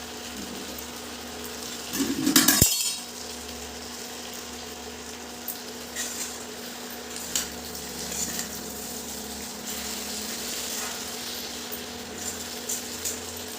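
A metal spoon scraping and clinking against a kadhai while a mixture of ghee, jaggery and dry fruit is stirred and fried, with a faint sizzle underneath. About two seconds in there is a loud clatter of metal on metal, then lighter scrapes and clinks.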